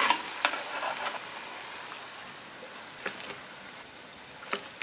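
Lentil vadai deep-frying in hot oil in a kadai: a sizzling hiss that fades after about a second. Sharp metal clicks, from the slotted spoon lifting the vadai out against the pan, come near the start, and a few more scattered clicks follow.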